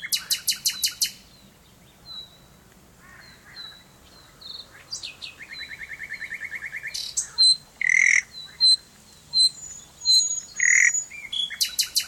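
Common nightingale singing a varied song: a rapid burst of loud repeated notes, thin high whistles, a fast rattling trill and loud single notes, then another rapid burst of notes near the end.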